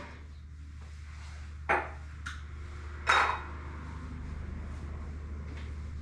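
Cookware clattering: two sharp metallic clinks of pots and utensils, about two and three seconds in, the second the louder with a short ring, plus a few lighter knocks over a steady low hum.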